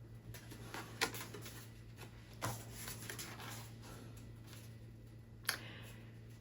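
Oracle cards being handled and shuffled: soft rustling with a few sharp card snaps, the loudest about a second in and again near five and a half seconds in.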